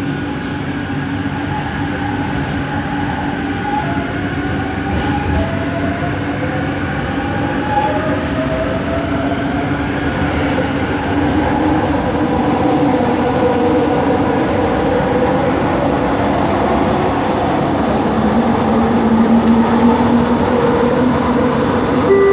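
Bombardier Innovia ART 200 train accelerating, heard from inside the car: the linear induction motor's whine climbs in pitch in several tones over running noise that grows steadily louder.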